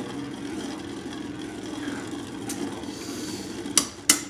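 Two Beyblade Burst spinning tops whirring steadily on the plastic floor of a covered Beyblade stadium, and clicking sharply twice near the end as they collide.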